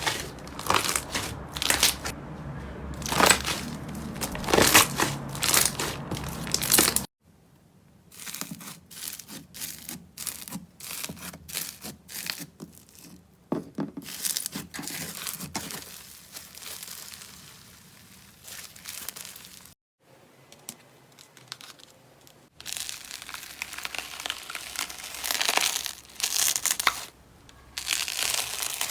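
Slime being pressed and worked by hand, giving many short crackling, crinkling bursts. The sound changes abruptly about seven seconds in and twice more later on, as a different slime takes over.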